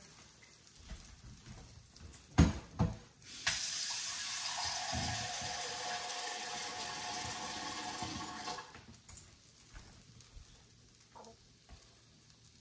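Two sharp knocks, then a kitchen tap runs steadily for about five seconds and is turned off.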